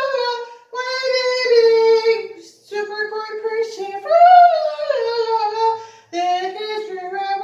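A single voice singing unaccompanied, holding and sliding between notes in phrases broken by brief pauses for breath.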